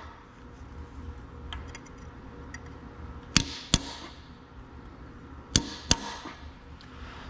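Hammer blows on metal: two pairs of quick strikes, each ringing briefly, with a few faint small clicks of metal parts before them.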